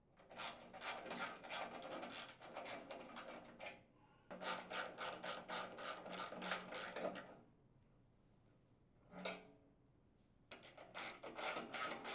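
Ratchet turning a half-inch socket, clicking rapidly in several runs as it backs nuts off the housing's mounting screws. There is a short pause about four seconds in and a longer one past the middle.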